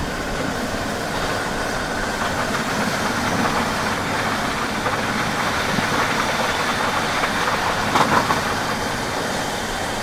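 Double-decker passenger train running along the track, a steady rumble and rattle of the moving coach. About eight seconds in there is a brief, louder clatter.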